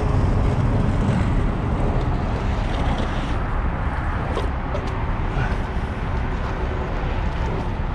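An engine running steadily, with a few short scrapes or knocks over it.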